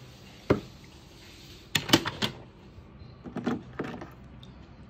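Handling noises of diecast toy cars being moved between plastic trays of coloured water: a single sharp knock about half a second in, a quick cluster of three or four louder knocks just before the two-second mark, then softer knocks and wet handling sounds near the end.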